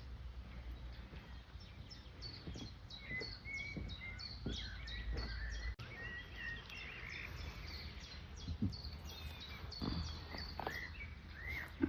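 Birds singing: a run of quick high chirps that drop in pitch, several a second, mixed with short whistled notes, over a low rumble.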